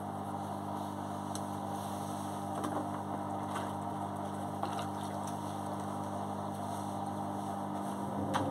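Beko front-loading washing machine running, its drum motor humming steadily as the drum turns and the laundry tumbles, with a few faint ticks.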